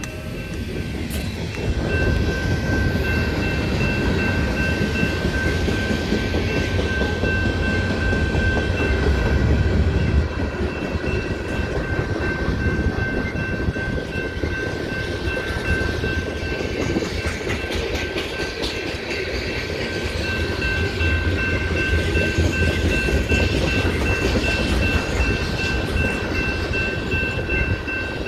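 BNSF freight train of open-top hopper cars rolling through a grade crossing: a steady rumble and clatter of wheels on the rails. Over it, the crossing's warning bell rings without a break.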